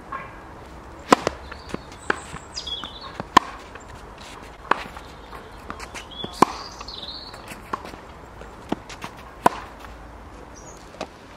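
Tennis balls struck with racket strings and bouncing on an outdoor hard court during a baseline rally: sharp pops about once a second, the near ones loud and the far ones fainter.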